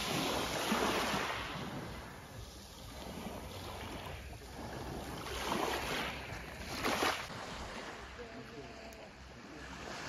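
Small sea waves breaking and washing up over a pebble beach, with louder surges about a second in and again around six and seven seconds, then quieter.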